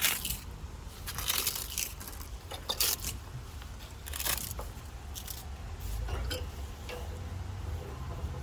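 Crunching footsteps, irregular and about one to one and a half seconds apart, over a steady low hum.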